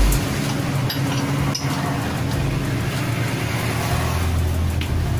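A steady mechanical running noise: a low hum under an even rushing sound, like a motor or engine running.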